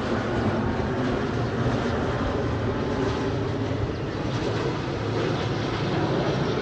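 Airbus A330-300 jet engines running: a loud, steady noise with a low rumble underneath, holding even throughout.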